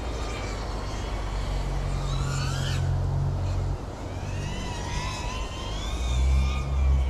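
FPV quadcopter's brushless motors and propellers whining, the pitch rising and falling with the throttle. A rising sweep cuts off abruptly a little under three seconds in, then the whine wavers up and down again, over a steady low rumble.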